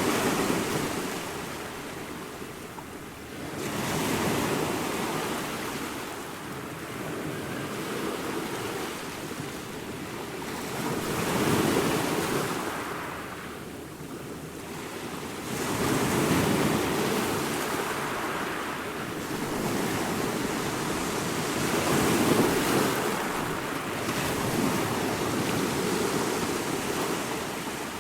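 Ocean waves breaking on a beach: a continuous rushing wash of surf that swells and eases as each wave comes in, every four to six seconds.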